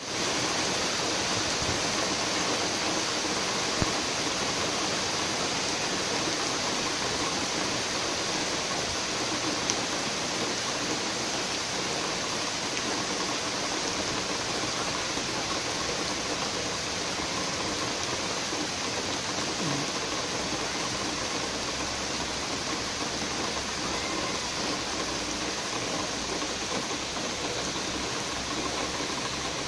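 Heavy downpour: a steady, even hiss of rain, with a few sharp ticks of drops striking something hard.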